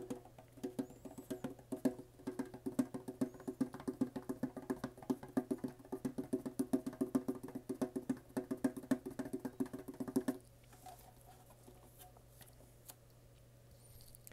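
Fingertips tapping rapidly on the lid of a metal Pokémon trading card tin, each tap ringing with the tin's hollow tone. The tapping stops about ten seconds in, leaving only a few faint clicks of the tin being handled.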